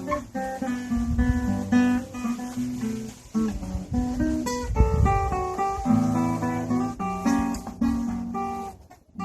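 Acoustic guitar played, a run of picked notes and chords. Wind rumbles on the microphone about a second in and again around the middle. The sound breaks off briefly just before the end.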